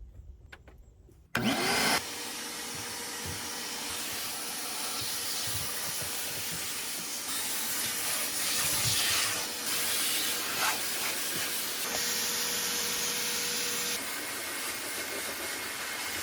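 Vacuum cleaner switched on about a second in and running steadily, sucking up sawdust, wood chips and dirt from the floor of a van.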